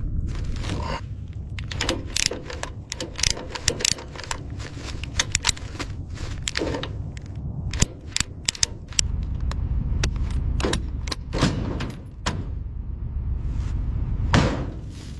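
An irregular run of sharp clicks and knocks, densest in the first half, over a steady low rumble.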